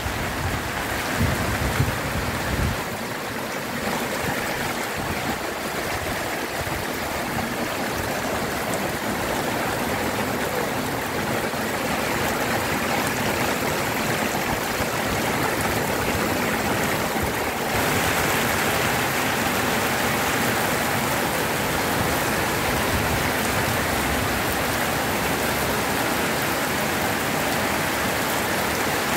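Heavy summer downpour pouring onto asphalt and pavement, a steady even hiss of rain that turns suddenly a little louder about two-thirds of the way through. A few low bumps near the start.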